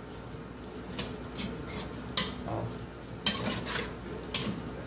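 A utensil stirring pasta in sauce in an aluminium cooking pot, with irregular sharp clinks and scrapes against the metal pot.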